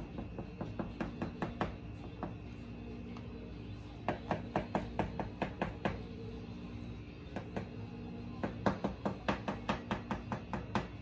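Knife cutting down through cake in quick short up-and-down strokes, the blade tapping the board beneath: runs of sharp taps, several a second, with a pause around the middle.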